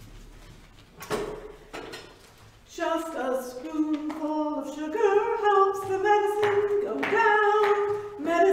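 A woman singing a melody unaccompanied, in held notes that step up and down, starting about three seconds in after a brief noise about a second in.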